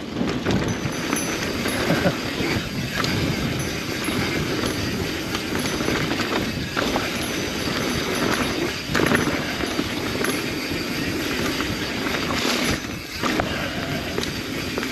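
Mountain bike riding down a rough trail: a steady rumble and rattle of tyres and bike over rocks and roots, with a few brief lulls.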